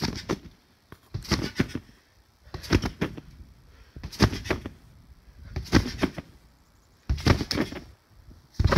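Repeated bounces on an in-ground trampoline: a thump of the mat at each landing, about one every second and a half, seven in all.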